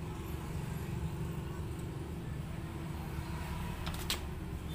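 A steady low rumble like a running engine or passing traffic, with a single sharp click about four seconds in.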